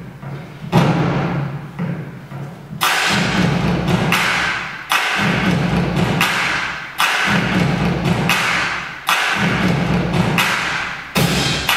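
Belly-dance drum solo music played on Arabic hand drums. Heavy drum strikes come about once a second, some in quick pairs, each ringing on over a low held tone.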